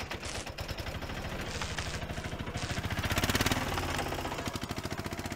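A rapid, even rattle over a steady low hum, swelling slightly about three seconds in and fading near the end: a sound effect under an animated intro.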